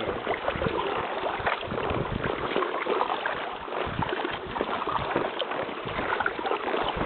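Paddling sounds from an inflatable kayak: many small splashes and trickling water, mixed with rubbing noise close to the microphone.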